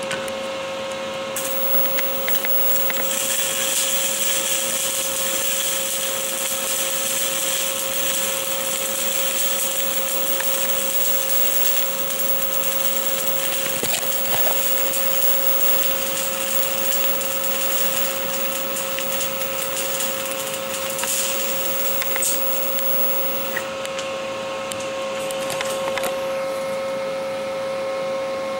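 Stick (SMAW) welding arc on stainless steel, crackling and hissing steadily while a vertical-uphill cover pass is run; the hiss thins out near the end. A steady high-pitched whine runs underneath throughout.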